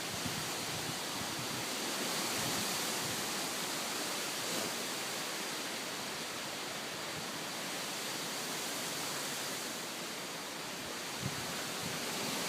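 High wind rushing through trees, a steady hiss of tossing leaves and branches that swells slightly and eases off again, with little microphone buffeting.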